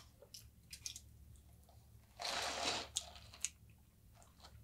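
A man chewing a mouthful of cooked rice, with scattered small clicks. A short rush of noise comes about two seconds in.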